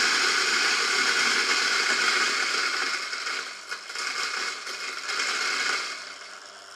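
Eureka Mignon Specialita espresso grinder's motor and flat burrs running, grinding out the last beans left inside. It is loud and steady for about three seconds, then grows quieter and uneven and fades near the end as the grind runs out of beans.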